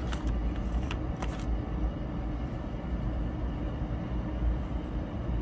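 A seasoning shaker shaken over raw chicken thighs, giving a few light rattles and clicks in the first second and a half, over a steady low rumble.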